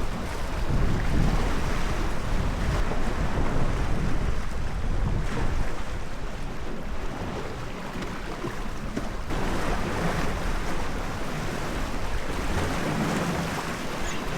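Wind buffeting the microphone over the continuous wash of sea surf.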